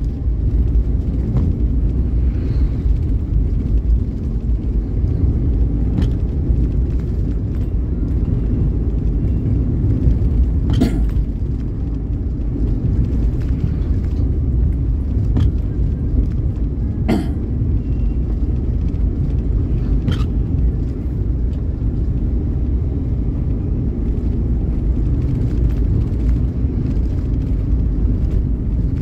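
Steady low rumble of a vehicle driving along a road, broken by a few sharp knocks.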